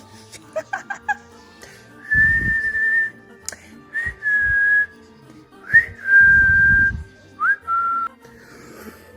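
A whistled tune: four quick short notes, then several held notes, two of them begun by a quick upward slide. A low rushing noise comes in under two of the held notes.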